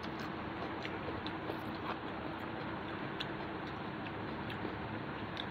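Soft, scattered clicks of eating by hand off a banana leaf: fingers working rice and chewing, over a steady background hiss.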